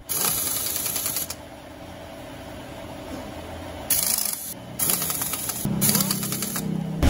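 Pneumatic impact wrench on a long extension running in flywheel housing bolts: a rattling hammer burst with air hiss at the start, then after a pause three short bursts in quick succession near the end.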